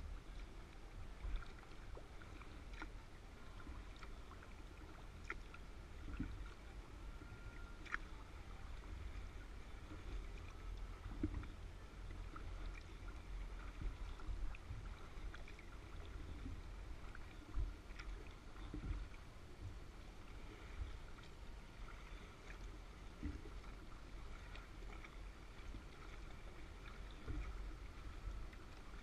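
Sea kayak being paddled on calm water: faint, irregular splashes and drips of the paddle strokes and water lapping at the hull, over a steady low rumble.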